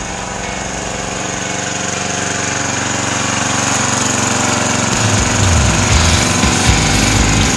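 Engine of a green Bunton walk-behind mower running with its newly rebuilt carburetor, getting louder as the mower rolls closer. About five seconds in the deep part of the sound turns into a rougher, faster pounding.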